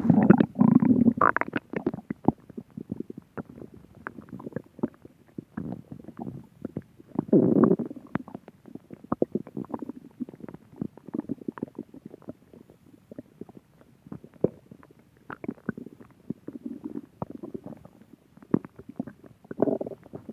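Human stomach growling: irregular gurgling rumbles with many small clicks and pops between them, loudest at the start, again about seven seconds in, and near the end.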